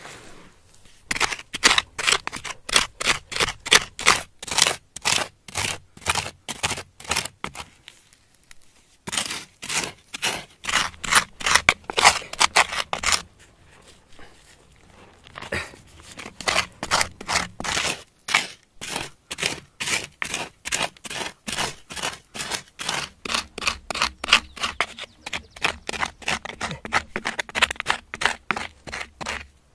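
A hand-held stone tool bound with cord digging and scraping into gravelly soil in fast, even strokes, about three a second. The strokes pause briefly about eight seconds in and again around fourteen seconds.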